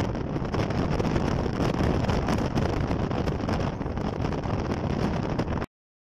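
Wind buffeting the phone's microphone together with the rumble of a moving car, a loud, uneven rushing noise. It cuts off abruptly near the end into silence.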